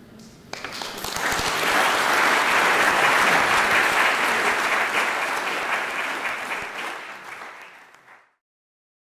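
Audience applauding, starting about half a second in, swelling and then fading, and cut off abruptly near the end.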